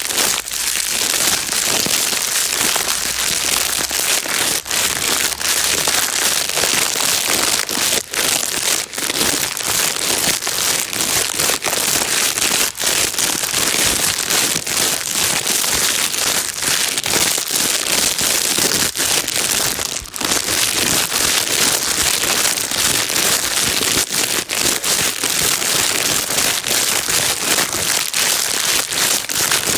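Plastic bag being crinkled and rustled without pause: a dense crackling hiss full of small sharp crackles.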